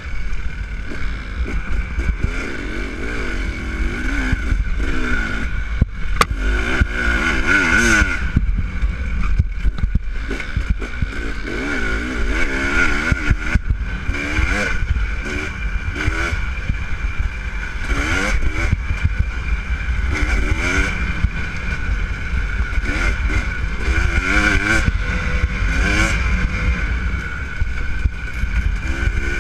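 On-board sound of a dirt bike engine revving up and down as the rider works the throttle along a rough trail, with frequent knocks from the bumpy ground.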